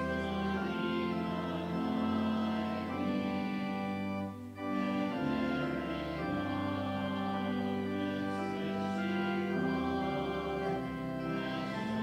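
Church organ playing a hymn tune in held chords, with a brief break about four seconds in.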